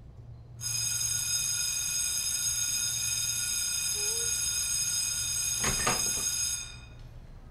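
A bell ringing steadily, starting about half a second in and cutting off about six seconds later, with a short knock just before it stops.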